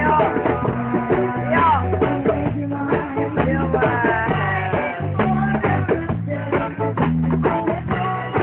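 A live band playing a song on electric guitar, bass and drum kit, with a steady beat and a repeating bass line.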